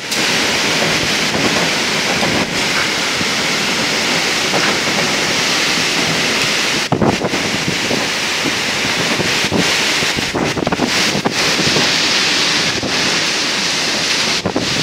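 Strong storm wind gusting through trees and palms: a loud, steady rushing noise.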